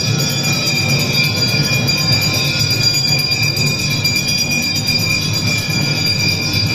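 Temple bells ringing continuously during aarti, a dense, steady clangour of overlapping rings with a low rumble beneath.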